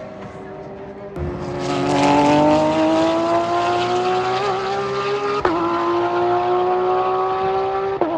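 Porsche 911 GT3 R race car's naturally aspirated flat-six under hard acceleration. After a quieter first second, the engine note climbs steadily, broken by two quick upshifts, about two-thirds of the way in and again near the end, each a sharp crack with the pitch dropping.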